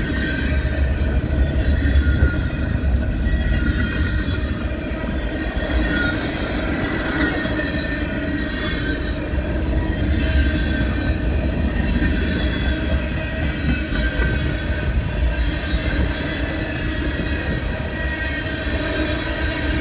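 A train rolling past: a steady low rumble of railcars, with the steel wheels squealing as several held high tones.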